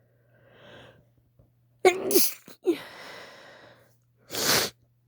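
A woman's induced, wet sneeze about two seconds in: a loud sudden voiced burst falling in pitch, a quick second catch, then a breathy exhale. A faint breath comes before it, and a second short, sharp burst of breath comes near the end.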